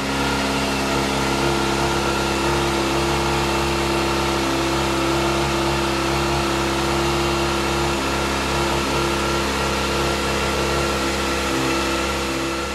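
A motorcycle engine running at steady revs, holding one even pitch.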